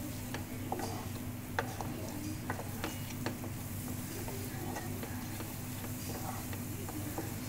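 Wooden spatula stirring and scraping a thick onion-pickle paste around a frying pan, with irregular clicks of the spatula against the pan, over a steady low hum.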